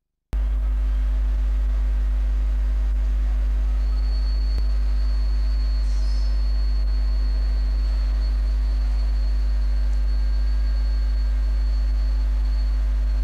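Favretto MC 2T 400 CNC grinding machine running with a steady low electric hum, joined about four seconds in by a thin high whine.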